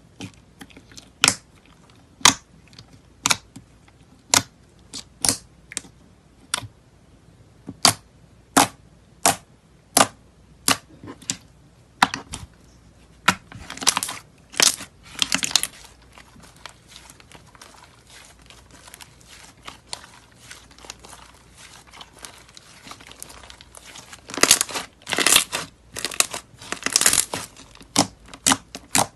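Hands squeezing and pressing thick white slime with clay slices on top: a run of sharp pops about once a second, then longer crackling bursts twice as a ball of slime is squeezed and stretched.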